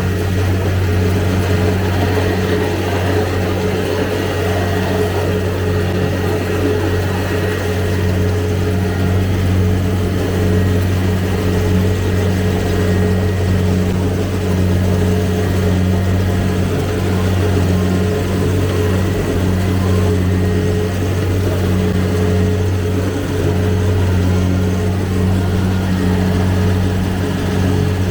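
Kubota DC-70 combine harvester's diesel engine running steadily under load with an even low drone.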